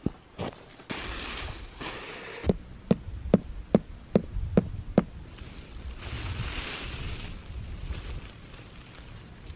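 Tent being pitched on snow: rustling and handling of the tent fabric, with a run of about seven sharp knocks, a little over two a second, in the middle.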